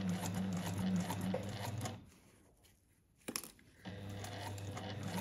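Sewing machine stitching zipper tape at a slow, steady pace, its motor humming under fast needle strokes. It stops about two seconds in, a single click follows, and it starts stitching again about a second and a half later.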